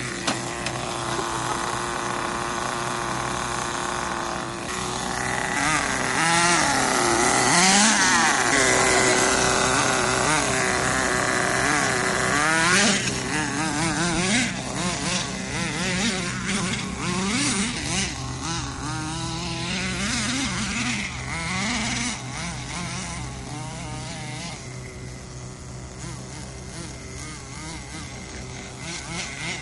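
Small nitro engine of a Volcano SV 4WD RC monster truck running, its pitch rising and falling over and over as the throttle is worked. Steadier for the first few seconds, then rapid revving, loudest from about six to thirteen seconds in.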